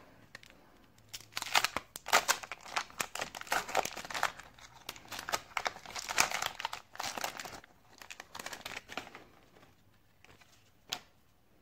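Wrapper of a 1990 Leaf baseball card pack being torn open and crinkled by hand: a run of quick rustles that dies away after about nine seconds, with a single sharp click near the end.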